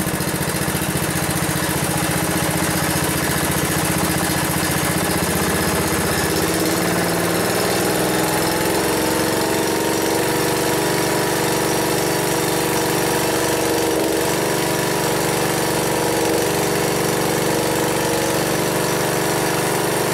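Briggs & Stratton Intek 12.0 hp single-cylinder overhead-valve engine idling evenly on a freshly overhauled carburetor, very nicely. Its speed rises slightly about seven to nine seconds in, then holds steady.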